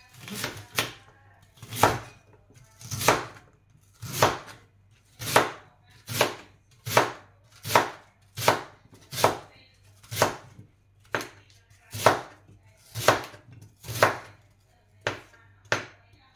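A large kitchen knife chopping rhubarb stalks into chunks on a plastic cutting board: a steady run of crisp cuts ending in a knock on the board, about one a second.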